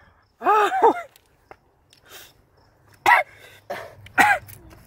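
A young man's short laugh, then two sharp coughs about a second apart, from the burn of a very hot chili sauce he has just tasted.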